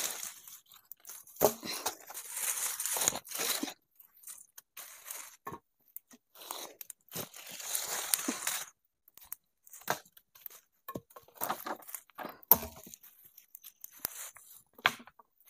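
Irregular bouts of rustling and crunching broken by sharp snaps and clicks, from leaves, sticks and shelter materials being handled during shelter building.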